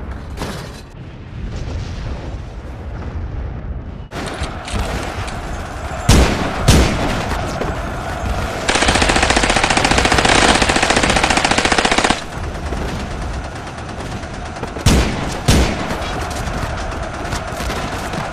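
Battle sound effects. A low rumble gives way about four seconds in to crackling rifle and machine-gun fire, which keeps on. There are pairs of loud bangs a little after the gunfire starts and again near the end, and a long unbroken machine-gun burst of about three and a half seconds in the middle.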